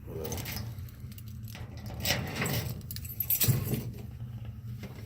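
Metal hand tools jangling and clinking in a tool chest drawer: several short spells of rattling, loudest about three and a half seconds in, over a steady low hum.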